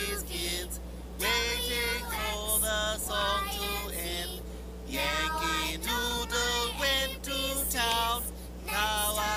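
A group of cartoon children singing a song together in unison, in short phrases with held notes and brief breaths between them.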